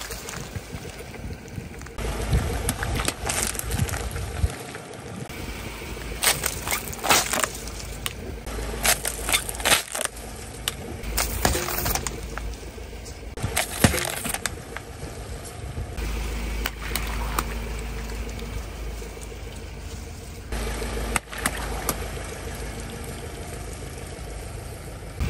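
Car tyre rolling over plastic bottles filled with water beads, crushing them: crackling and sharp cracks of the plastic giving way, with the beads popping and squelching, over a low tyre rumble. The crunching comes in several separate bursts.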